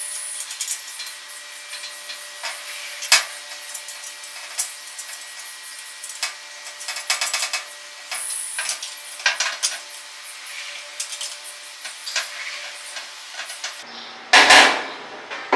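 Metal turbo-manifold parts and hand tools clinking, tapping and clicking as the pieces are handled and fitted together. There is a quick run of clicks about seven seconds in, and a louder burst of noise near the end.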